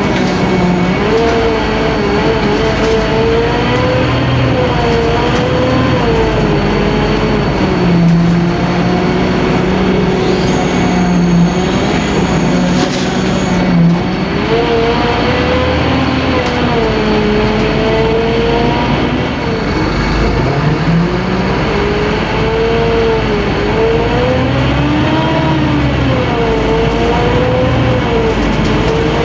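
Scania K-310IA bus's five-cylinder inline diesel engine, turbocharged and intercooled, running loud under way with a growl. Its pitch rises and falls several times as the bus speeds up and eases off.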